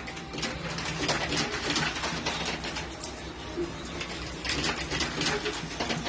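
Metal coins clinking and rattling in a coin-pusher arcade machine as they drop in and tumble over the sliding shelves, many small clicks throughout over a steady low hum.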